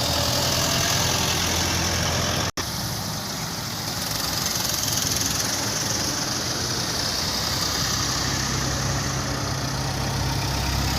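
A vehicle engine idling steadily, with a constant hiss of outdoor noise over it and a momentary cut-out about two and a half seconds in.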